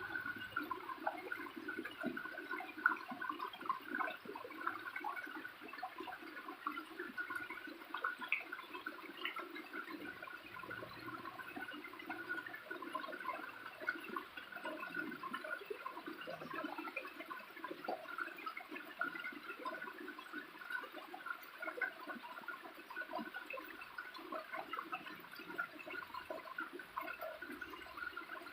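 Small waterfall splashing and gurgling steadily, a continuous churn of falling water with many little irregular splashes.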